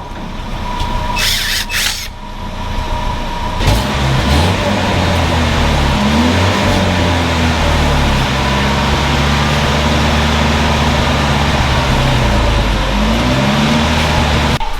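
2001 Nissan Frontier pickup engine starting about four seconds in, then running, revved up briefly twice.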